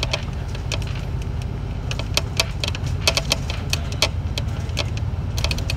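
Inside a city bus on the move: a steady low engine and road rumble with irregular sharp clicks and rattles.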